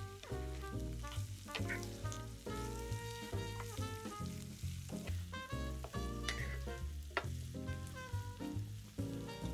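Food sizzling as it fries in oil in a pan, under background music with a walking bass line and a few light clicks.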